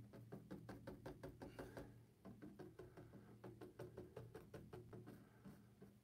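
Bristle paintbrush dabbing acrylic paint onto a stretched canvas in a fast run of soft taps, about seven a second, pausing briefly about two seconds in. A low steady hum runs underneath.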